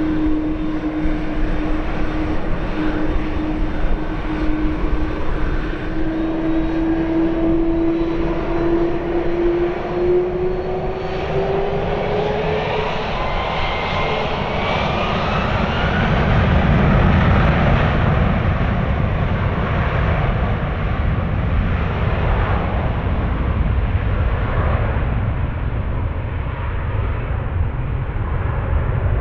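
Airbus A330-300 jet engines: a whine climbing slowly in pitch as they spool up, then a heavy rumble that peaks about halfway through and carries on steadily, typical of a takeoff run.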